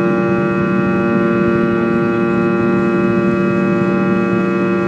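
Fokker 100's rear-mounted Rolls-Royce Tay turbofan engines running steadily at climb power, heard from inside the cabin: a loud, even drone with many held whining tones.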